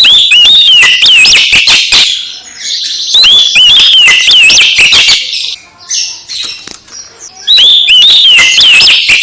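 Oriental magpie-robin singing loudly in fast, varied whistled phrases. Three long bursts of song come with short quieter stretches of chatter between them.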